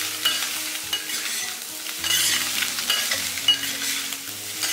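Century eggs, button mushrooms and chopped scallion, ginger and garlic sizzling in hot oil in a clay pot while a metal spoon stir-fries them. The spoon scrapes the pot and clinks against it now and then.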